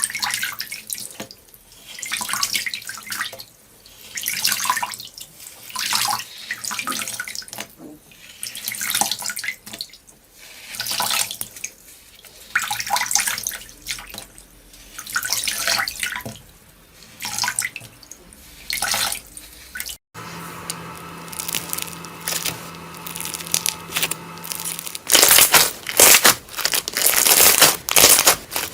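Slime being squeezed and worked by hand: wet squelching and popping that swells and fades about every two seconds. About twenty seconds in, a cut to a steadier, quieter passage with a faint hum, then loud, crisp crackling near the end.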